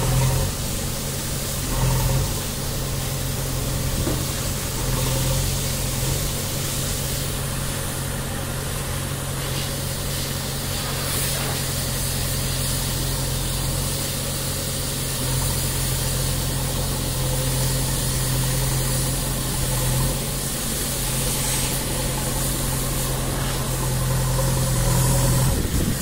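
JCB 3DX backhoe loader's diesel engine running steadily while the backhoe arm works, its note swelling a little now and then.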